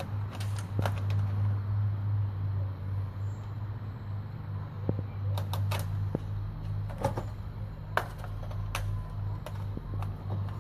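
Cat's claws catching and scraping on a screen door's mesh as it clings and climbs, making scattered clicks, taps and light rattles of the door. A steady low hum runs underneath.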